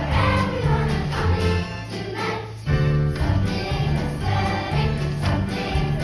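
Music: a choir singing with accompaniment. It thins out briefly about two seconds in, then comes back in full.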